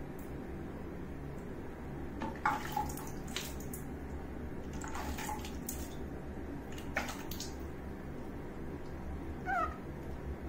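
Water splashing and dripping in a few short bursts as a wet newborn monkey is rinsed in a person's hands. Near the end the baby monkey gives one short squeak that falls in pitch.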